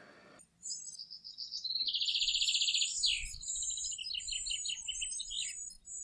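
Songbirds singing, starting suddenly about half a second in: a fast high trill, thin very high notes and runs of short falling notes, from more than one bird.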